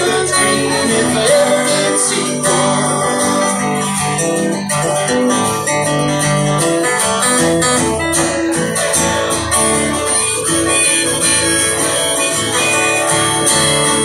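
Two acoustic guitars strummed and picked together in a live duo performance, with a man singing into a microphone.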